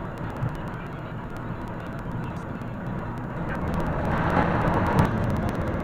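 Road and engine noise inside a moving car, picked up by a dashcam, with a scatter of faint clicks over it. It grows somewhat louder in the second half.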